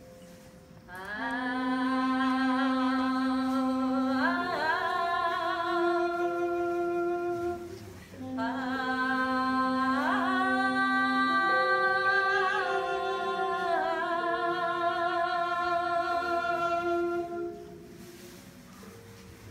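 A woman singing two long phrases, each sliding up into held notes, over lower sustained notes that change in steps. The singing stops about two seconds before the end.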